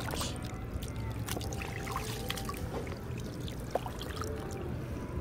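A hand splashing and stirring in shallow seawater, with small irregular splashes and water trickling and dripping.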